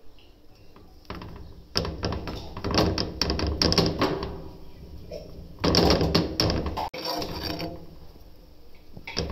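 Irregular knocking and rubbing handling noises at an iron tawa as a paratha is laid on it and pressed by hand. They come in two busy spells, with a quieter stretch between them and another near the end.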